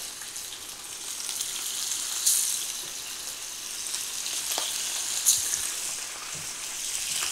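Salmon steaks sizzling as they are laid skin-side down into hot olive oil in a frying pan: a steady high hiss of shallow frying, with two brief louder spurts about two and five seconds in.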